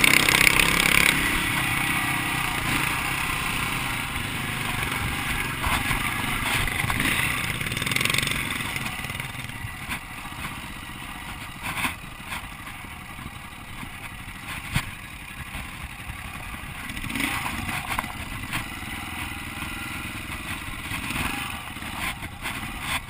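Dirt bike running on a rough trail, with wind noise on the bike-mounted camera. It is loud for the first eight or nine seconds, then quieter as the bike slows, with scattered clatters and knocks from the bike over the rough ground.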